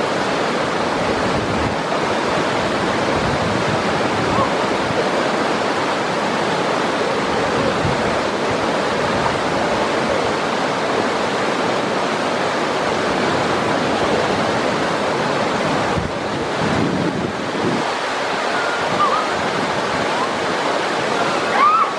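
Whitewater river rapids rushing over boulders, a steady, unbroken roar of water.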